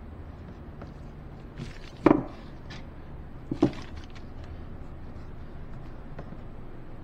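Wooden mixing stick stirring varnish in a metal can: faint scrapes and taps, with two sharp knocks about two and three and a half seconds in. A steady low hum runs underneath.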